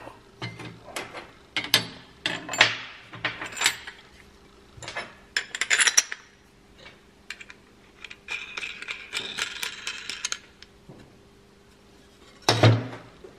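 Metal parts clinking and clattering on a steel workbench as washers, a bolt and a spanner are handled to assemble a dimple-die stack: a string of sharp clinks, then a rasping scrape for about two seconds, and a louder clank near the end.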